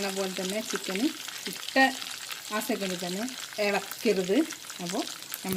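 Chicken pieces frying in oil in a steel kadai: a steady sizzle with scattered pops and spits while a steel spatula stirs them. Over it come short pitched tones that rise and fall, of unclear source.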